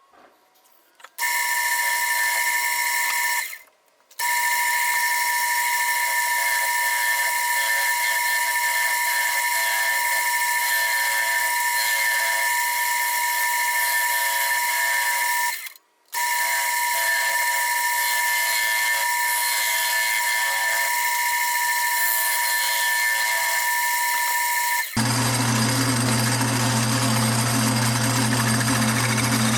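Wood lathe running with a steady whine of several fixed pitches, cut off abruptly twice. About 25 seconds in, a rougher, lower-pitched machine sound takes over.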